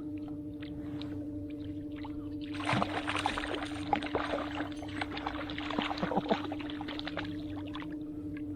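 A boat motor hums steadily in one even tone. From a few seconds in, a hooked fish fights near the boat, with a few seconds of quick splashing and clicking water.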